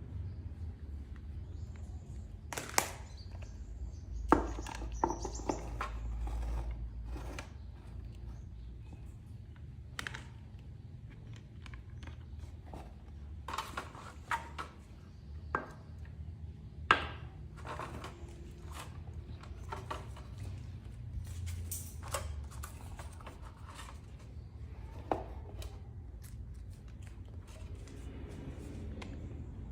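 Scattered sharp clicks and clatter of small hard objects being handled, over a steady low hum.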